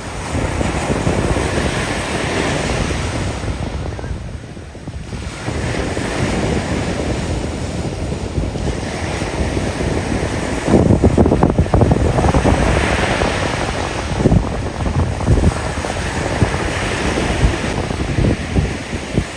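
Ocean surf breaking and washing in, swelling and ebbing every few seconds, with wind gusting on the microphone, heaviest about eleven seconds in.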